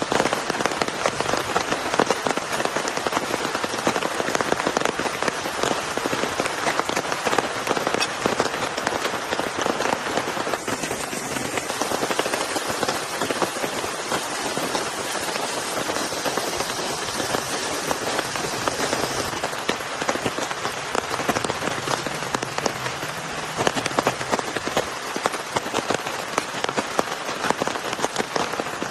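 Heavy rain falling steadily, a dense patter of countless drops striking a surface.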